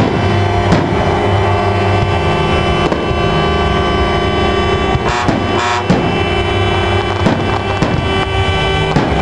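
Aerial fireworks bursting, a handful of sharp bangs spaced a few seconds apart, over steady loud music.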